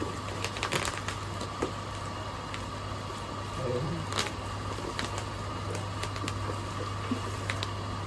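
Packaging being handled while headphones are unboxed: scattered light clicks and rustles, over a steady low room hum.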